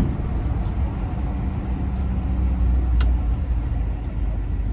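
Motorhome's 454 V8 engine running steadily under way, heard from inside the cab over road noise; it sounds like it's running pretty good. A single short click about three seconds in.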